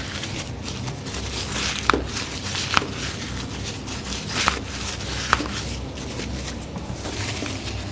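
Four short sharp clicks, about a second apart, over steady room noise: cracks and knocks from a chiropractic lower-back adjustment.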